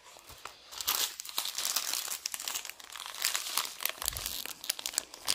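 Plastic packaging of a diamond painting kit crinkling as it is handled: the canvas and a strip of small plastic bags of round drills. Dense irregular crackling starts about a second in, with a dull low bump near the end.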